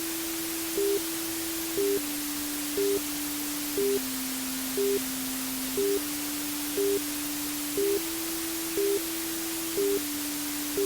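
Steady white noise hiss for baby sleep, with a soft low tone underneath that steps to a new pitch about every two seconds and a short beep about once a second.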